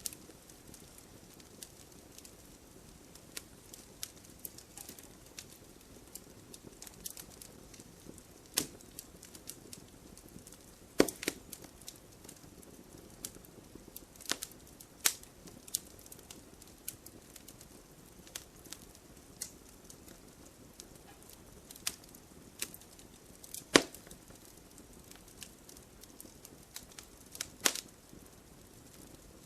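Burning firewood crackling, with scattered sharp pops and snaps over a low steady hiss; the loudest pops come about eleven, fifteen and twenty-four seconds in.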